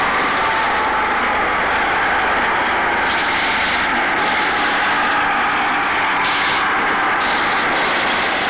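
Battle noise on an old film soundtrack: a loud, continuous wash of noise with no single shot or blast standing out.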